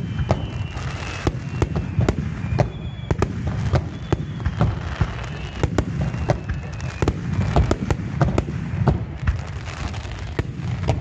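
Aerial firework shells bursting in a dense barrage: rapid, overlapping bangs, several a second, over a continuous low rumble. High falling whistles sound in the first few seconds.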